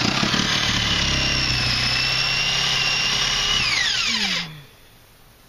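Electric drill running at a steady full-speed whine while boring a hole in the wall for the cable run. About three and a half seconds in the trigger is released and the whine falls in pitch as the drill spins down.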